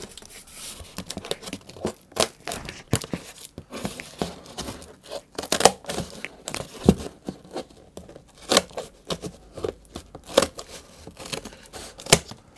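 Scissors cutting through corrugated cardboard: a string of short, uneven crunching snips as the blades close through the board.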